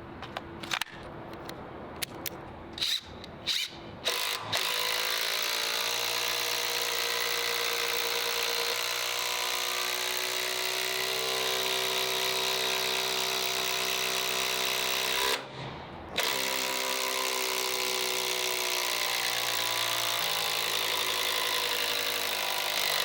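Makita TD001G XGT 40V brushless impact driver running: a few short trigger bursts, then a long steady run of about ten seconds, a brief stop, and a second run of about seven seconds.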